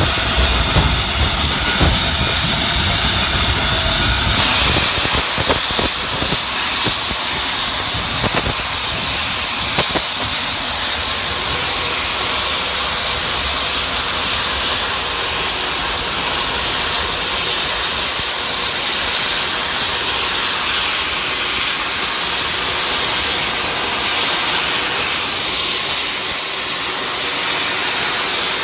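Steady hiss of steam from a Baldwin-built 0-6-0 steam locomotive as it runs. The hiss grows louder and brighter about four seconds in, with a few light knocks over the next several seconds.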